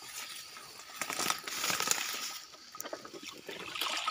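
Wet weeds and stems rustling and crackling, with small water splashes, as a hand pushes through the vegetation and grips a plastic gallon-jug eel trap standing in shallow water.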